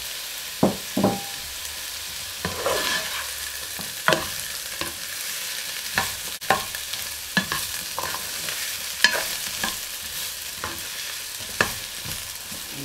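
Sliced chorizo, onion, carrot and celery frying in a large non-stick pan, stirred and tossed with a plastic spatula: a steady sizzle broken by sharp knocks and scrapes of the spatula against the pan every second or two.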